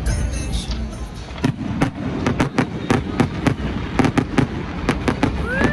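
Fireworks going off: a rapid string of sharp bangs and crackling pops that starts about a second and a half in and comes several times a second.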